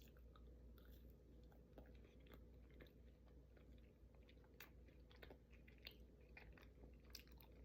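Faint chewing: scattered small mouth clicks and soft bites, spread irregularly throughout.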